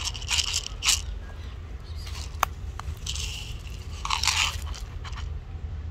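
Irregular dry crunching and crackling of fallen leaf litter in several short bursts, over a low steady background rumble.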